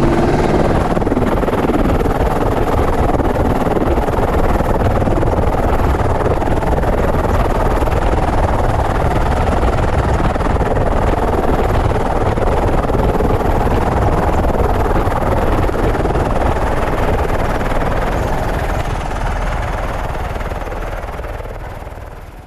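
Steady rushing noise of an Airbus EC120 helicopter in flight, heard from a camera on board. It fades out over the last few seconds.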